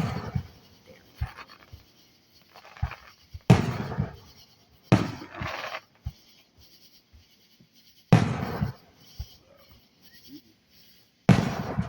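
Fireworks exploding: about five loud booms a few seconds apart, each trailing off, with smaller pops and crackles in between.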